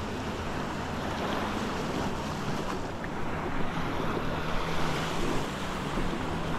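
Small waves breaking and washing up a sandy beach in a steady surf wash, with wind buffeting the microphone.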